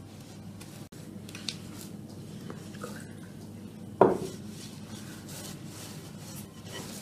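Hands kneading dough in a glass bowl: soft pressing and rubbing sounds, with one sharp, loud knock against the bowl about four seconds in.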